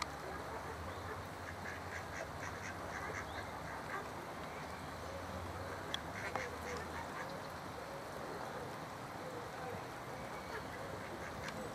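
Mallard ducks quacking in short, repeated calls while drakes scuffle over a female.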